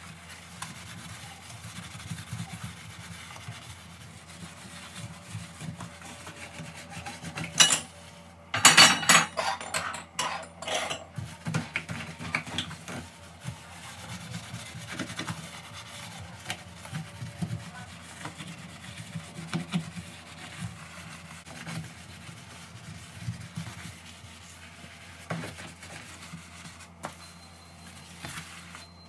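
Cloth rubbing over the foam-covered glass top of a gas hob in steady back-and-forth wiping strokes. A few loud, sharp knocks and scrapes come about eight to eleven seconds in.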